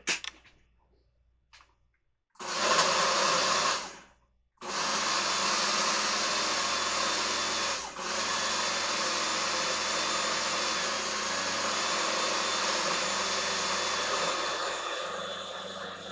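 Countertop blender puréeing roasted butternut squash with coconut milk: a short pulse of about a second and a half, then, after a pause of under a second, a long steady run that grows quieter near the end. A brief clink comes just before it.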